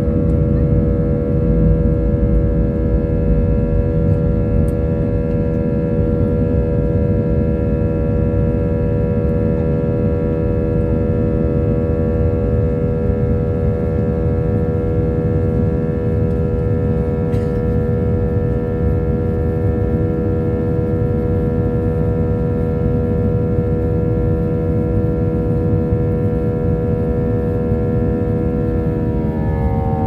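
Airliner turbofan engine at takeoff thrust, heard from inside the cabin over the wing: a loud, steady drone of several whining tones over a deep rumble. Near the end all the tones drop together in pitch as thrust is reduced for the climb.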